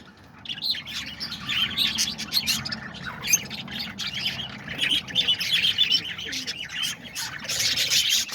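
A flock of parakeets chirping and chattering continuously, many short overlapping calls at once.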